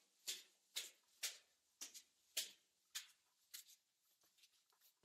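Footsteps of shoes on concrete stairs, gritty scuffing strikes about twice a second, turning into softer, quicker steps on the flat concrete floor from about three and a half seconds in.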